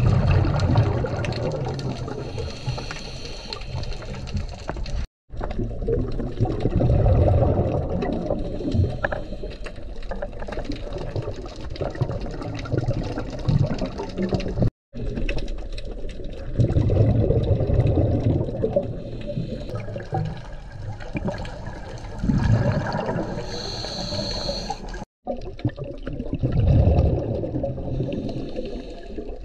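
Scuba diver breathing through a regulator underwater: a hiss on some inhales and a rush of exhaled bubbles every few seconds. The sound cuts out briefly three times.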